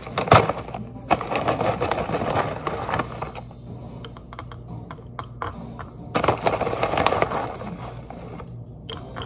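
Plastic-lined granola bag crinkling as it is handled and rummaged through, in two bursts, one near the start and one about six seconds in, with scattered light clicks of granola clusters between them.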